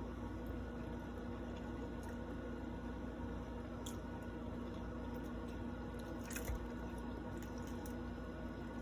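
Close-up chewing and wet mouth sounds of a person eating chicken, with scattered small clicks and one sharper click about six and a half seconds in, over a steady low hum.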